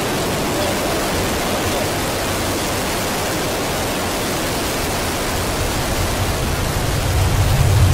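Soyuz-2.1a rocket engines firing at liftoff: a steady, even roar, with a deeper rumble building near the end.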